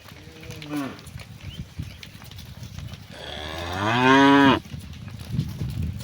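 Cows mooing: a short moo falling in pitch near the start, then a long, loud moo about three seconds in that rises and falls in pitch and cuts off sharply.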